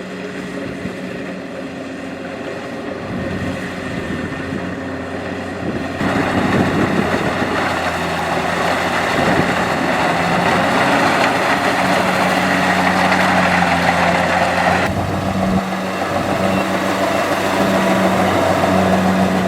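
Kubota DC-70 rice combine harvester running, its diesel engine and threshing machinery making a steady mechanical hum with a noisy rushing layer. The sound becomes abruptly louder and noisier about six seconds in, and changes again about fifteen seconds in.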